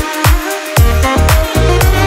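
Background electronic dance music with a steady kick-drum beat; the bass drops out briefly near the start, then the beat comes back in.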